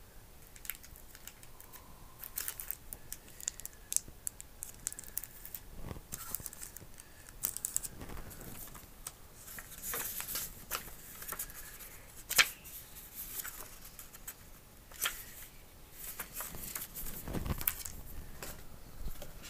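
Paper instruction sheet rustling and small parts being handled on a wooden table: intermittent crinkles, light clicks and taps, with a sharp click about twelve seconds in and a heavier knock near the end.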